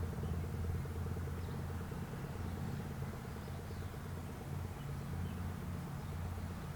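Low steady rumble of an idling vehicle engine outdoors; no siren tone is sounding.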